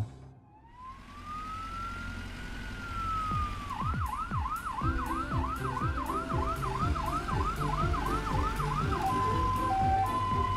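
Cartoon ambulance siren: one slow rising and falling wail, then a fast yelp of about three swoops a second, changing to alternating high and low notes near the end. Background music with a beat comes in beneath it about halfway through.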